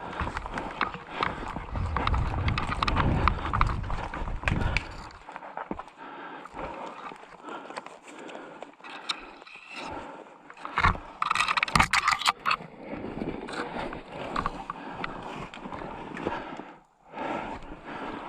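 Irregular knocks, clicks and rustling of a player moving about, with a heavy low rumble of wind or handling noise on the microphone for the first few seconds. A quick cluster of sharp clicks comes about twelve seconds in.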